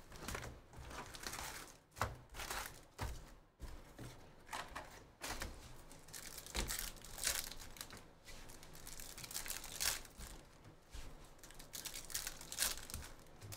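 Foil trading-card packs of Bowman University Chrome crinkling and rustling in irregular bursts as they are pulled from a hobby box and handled, with a pack wrapper being torn open.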